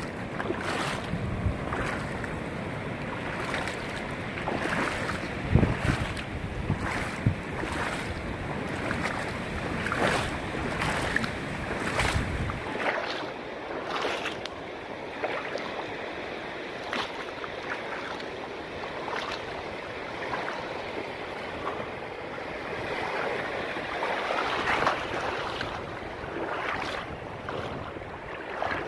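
Surf washing in over a shallow reef flat, with short splashes about once a second. Wind rumbles on the microphone for the first dozen seconds, then drops away.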